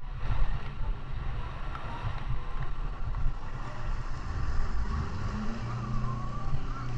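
Motorboat engine running, with wind buffeting the microphone. A steadier engine hum comes up about five and a half seconds in.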